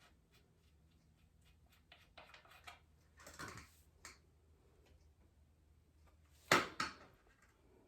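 Light metallic clicks and rustling of bicycle bottom bracket parts handled and pulled out by hand, with two sharp clicks close together near the end.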